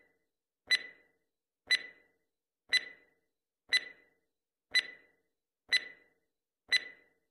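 Countdown timer sound effect ticking once a second: a short click with a brief bright ring, seven ticks with silence between.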